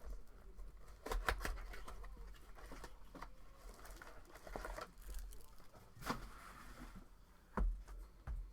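Scattered taps, bumps and rustling from a trading-card box and its packs being handled and opened.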